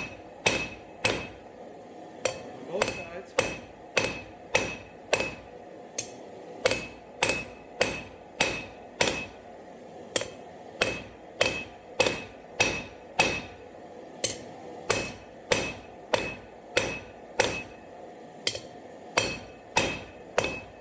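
A 32-ounce hammer striking hot half-inch square steel bar on an anvil face, at a steady rhythm of one to two blows a second with short pauses every few seconds, each blow ringing briefly. The blows flatten and pinch the bar to draw out a taper.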